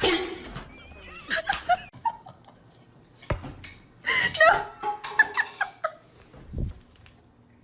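Short bursts of laughter, with a sharp knock about three seconds in and a dull thud near the end.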